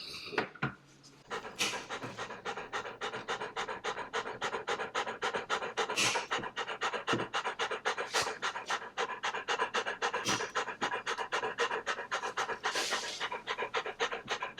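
A young Newfoundland dog panting rapidly and steadily, starting about a second in, with a few louder breaths along the way: the heavy panting of a frightened dog held for grooming.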